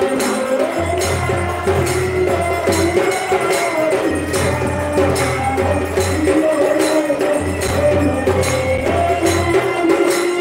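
Hindu devotional aarti music: a melody of held, stepping notes over a steady beat of percussion strokes, about two a second.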